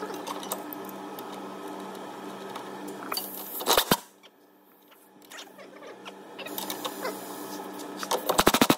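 Cordless impact driver tightening a leaf-spring shackle bolt, hammering in short rapid rattling bursts, once about three seconds in and again loudest near the end, over a steady background hum. Bolting up the shackle draws the polyurethane bush, pushed out when the pin was knocked through, back into place.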